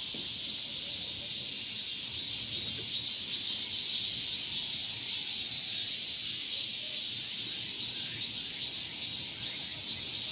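A steady, high-pitched chorus of summer forest insects, shrill and continuous with a faint pulsing.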